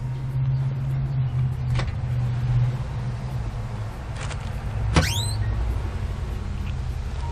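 Latches clicking and the steel doors of a large cabinet smoker swinging open, with a sharp metal clank and ringing about five seconds in, over a steady low hum.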